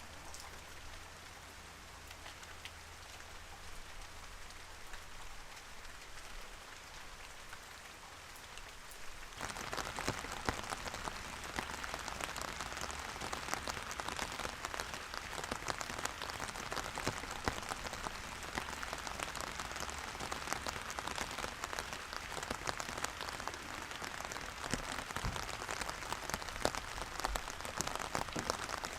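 Steady rain falling, with many individual drops tapping. About a third of the way in it turns abruptly louder and fuller, then carries on evenly.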